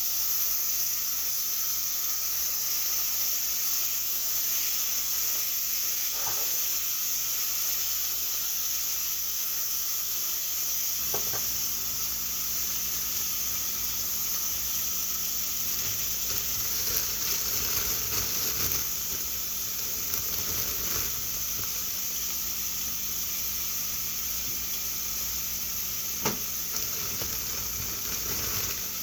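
Food frying in a pan, sizzling steadily, with three light taps or clicks scattered through it.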